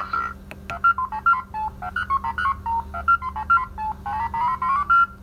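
A Mr. & Mrs. Pac-Man pinball sound effect played by a reproduction Bally Squawk & Talk sound board through a loudspeaker. It is a fast string of short electronic beeps that step up and down in pitch, with a quick rising run of notes near the end.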